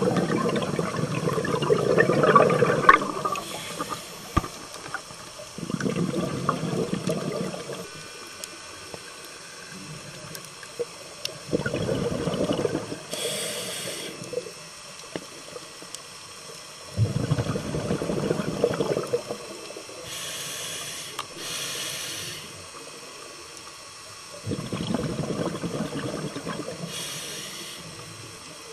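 Scuba diver breathing through a regulator underwater: a bubbling rush of exhaled air about every six seconds, each breath followed by a short high hiss as the regulator delivers the next inhalation.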